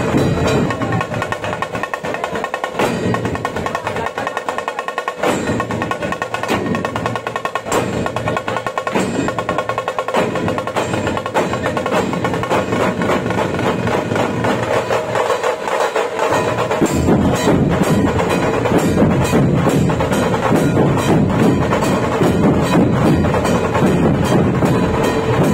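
A dhol-tasha ensemble playing: rapid cracking tasha strokes over big barrel-shaped dhol drums in a driving rhythm. The deep dhol beats drop out in places during the first part and come in steadily about two-thirds of the way through.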